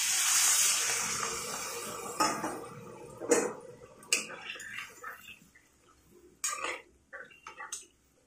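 Water poured into a hot kadai of fried potatoes and masala, hissing loudly at first and dying away over about three seconds. Then a metal spatula stirs the curry, with several sharp scrapes and clinks against the pan.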